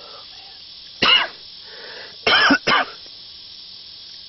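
A man coughing: three short, loud coughs, one about a second in and two close together a little later.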